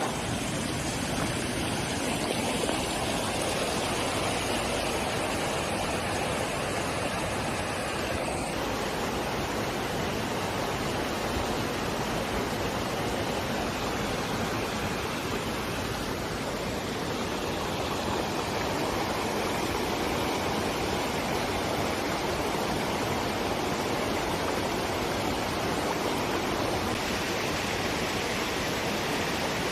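Steady rushing of a fast stream or waterfall: a dense, even wash of water noise.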